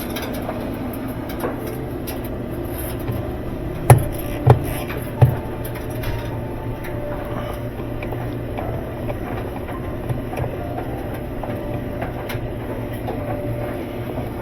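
Three sharp knocks in quick succession about four seconds in, roughly half a second apart, over a steady low hum.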